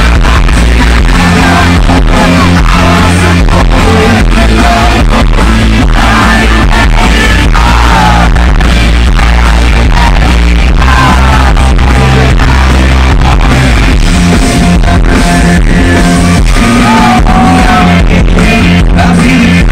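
Live rock band playing loud through the stage sound system, heard from the front row close to the bass: a heavy bass line and a steady drum beat under a male lead singer.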